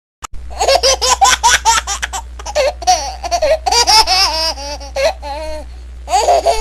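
A baby laughing in quick runs of high-pitched laughs with short breaths between them, over a steady low hum.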